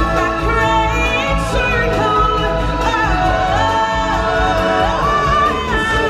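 Singers in a live stage show holding long notes and sliding between pitches, with a choir and backing music.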